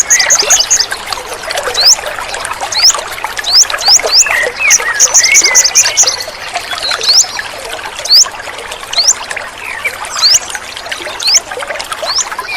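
Water trickling and splashing continuously, with wild birds calling over it: single high upward-sweeping notes about once a second, a quick run of rapid high chirps near the start and again around five seconds in, and lower chirps between them.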